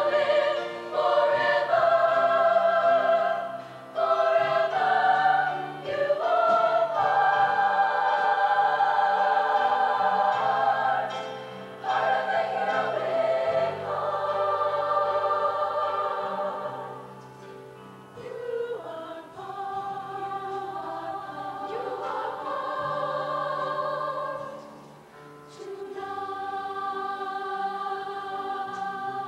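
High-school show choir of women's voices singing in harmony, with long held chords. The singing is loud at first and turns softer a little past halfway.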